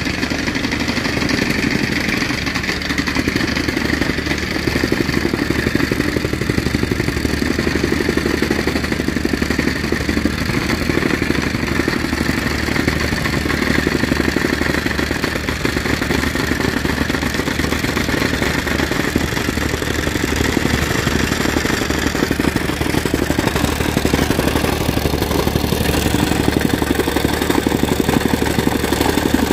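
Soil compactor's small engine running steadily with a fast, even pulsing beat as the machine works.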